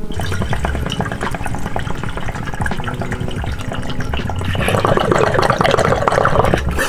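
Water bubbling in a glass bong as vapour from a vaporizer is drawn through it by a long inhale. The bubbling gets thicker and louder about four and a half seconds in.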